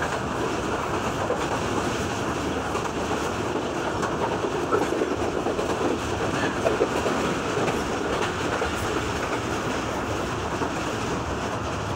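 Passenger train running at speed, its wheels clattering steadily over the rails. A few louder clacks come around the middle as it crosses the points at the station.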